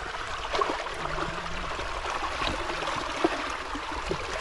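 Steady trickling water, with scattered light clicks and taps as eggs and snail shells are handled, one sharper tap about three quarters of the way through.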